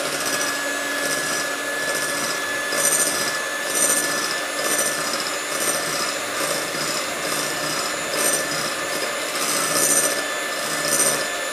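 Electric hand mixer running steadily with a thin whine, whipping egg whites as they begin to stiffen. A rasping scrape of the beaters repeats about once a second.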